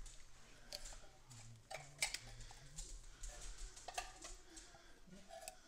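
Silicone spatula scraping condensed soup out of a tin can into a pot: a few faint, irregular clicks and scrapes of spatula against can.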